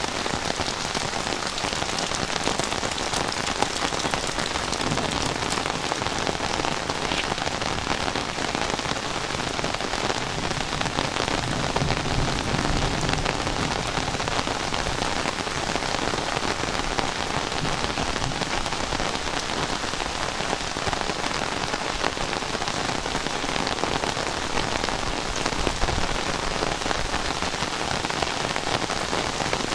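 Heavy rain falling steadily, a dense, even hiss of drops hitting surfaces.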